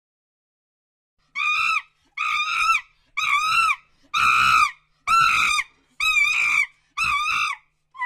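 Monkey calling: seven loud, high-pitched calls about a second apart, starting about a second in, each rising and then falling in pitch.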